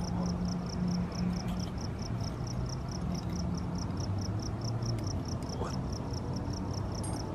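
A cricket chirping steadily, about five short high chirps a second, over a low steady hum.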